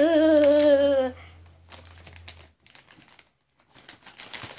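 A voice drawn out in a sing-song tone for about a second, then packaging crinkling and rustling as it is handled, with a brief pause in the middle.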